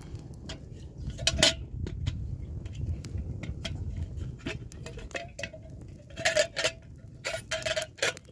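Metal cookware and utensils clinking and knocking together in a run of sharp, irregular knocks, several of them ringing briefly. The loudest come about a second and a half in and again around six seconds in.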